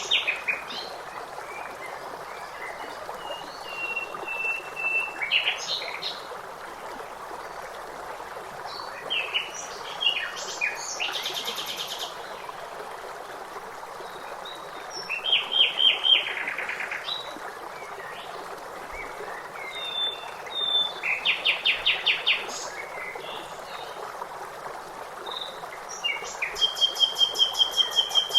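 Songbirds singing and calling, several of them in fast trills of rapidly repeated notes, over the steady rush of running water.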